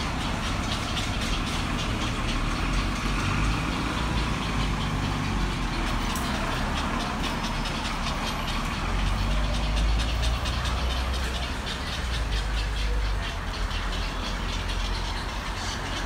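Bus engine running with a steady low rumble of street traffic, swelling about nine to eleven seconds in.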